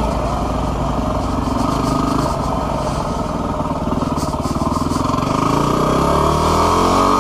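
Yamaha WR250R's single-cylinder four-stroke engine running under way, its pitch climbing over the last two seconds as it accelerates, then dropping right at the end.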